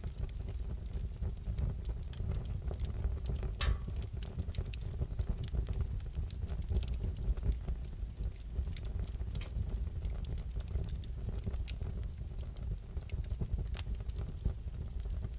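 Wood fire crackling in a fireplace: scattered small pops and snaps over a steady low rumble of the flames.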